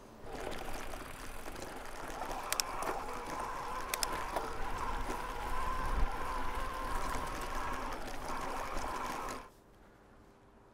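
Riding noise of an e-mountain bike rolling along a path: a steady rushing with a couple of sharp clicks. It cuts off suddenly near the end, leaving faint outdoor background.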